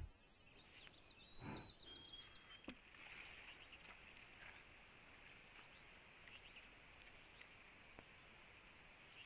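Near silence: faint night ambience from a trail camera, a steady faint high hiss with a few short high chirps in the first few seconds and a soft thud about a second and a half in.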